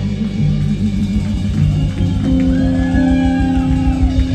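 Live blues band playing: electric guitar with bending notes over held bass notes and drums, with drum hits getting stronger near the end.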